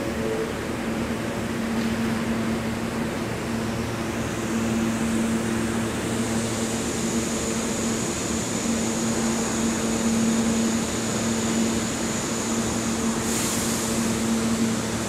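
R160 subway train standing at the platform with its doors open: a steady hum from its air-conditioning and on-board equipment, with a high whine that sets in about four seconds in and a short hiss near the end.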